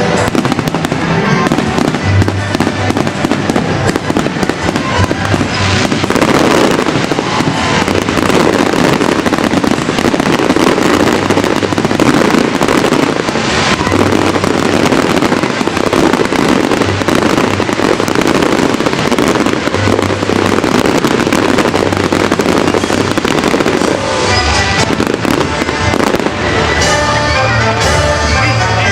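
New Year's fireworks display bursting and crackling without a break, mixed with loud show music that has a pulsing bass.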